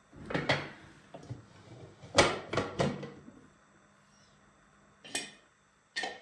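Metal clatter of a pressure cooker's lid and a metal ladle as the lid is unlocked and lifted off: a run of sharp knocks over the first three seconds, a short pause, then two more knocks near the end.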